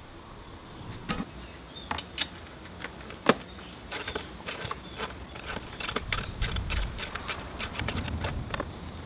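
Hand tools working on a scooter: scattered metallic clicks and clanks, one sharper knock about three seconds in, then a dense run of quick clicks over a low rumble.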